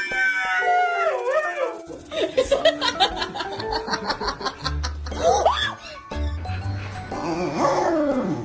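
A dog howling in long, wavering notes that bend and fall, with music playing underneath.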